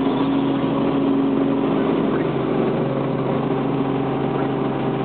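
Helicopter engine and rotor noise heard inside the cockpit in flight: a steady, unchanging drone with a constant low hum.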